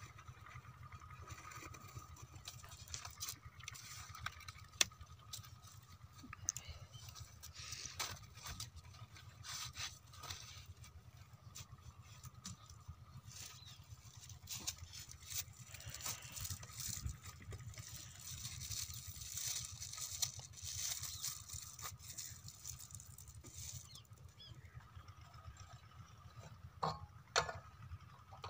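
Faint scattered taps, knocks and rustles from the pump's pipe and hose being handled, over a low steady rumble. The diesel engine is not running.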